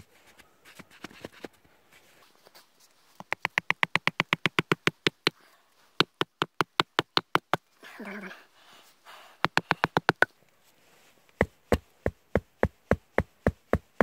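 Sharp wooden knocks in rapid runs as a wooden peg is hammered into a log of a bushcraft bench frame: a fast run of about ten knocks a second, two shorter runs, then slower, steadier blows about four a second near the end. A brief scrape comes a little past the middle.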